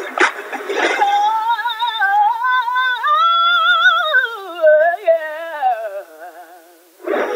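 A female R&B singer singing an unaccompanied run with strong vibrato, climbing and then sliding down in pitch, after about a second of music with a beat. Her voice fades away near the end.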